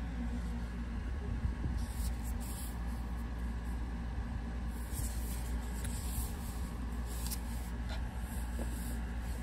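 Handling noise of a book and its cover: intermittent rustling and light scraping over a steady low hum.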